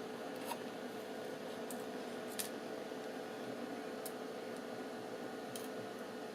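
A few faint, sharp clicks of a small tool working laptop parts, spread a second or two apart, over a steady background hum.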